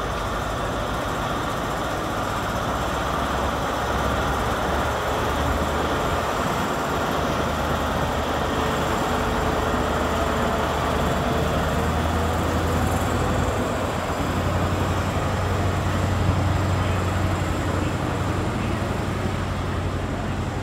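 Class 43 HST power car diesel engine running at a station platform, a steady low drone with a faint higher tone drifting in the middle.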